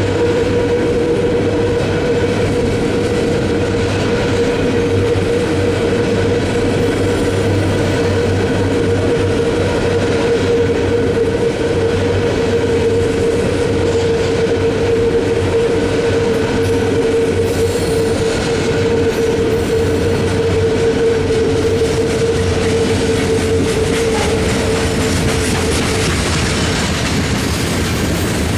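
Freight cars of a long mixed manifest train rolling past, with steady wheel rumble and clacking over the rail. A steady whining tone runs with it and fades out near the end.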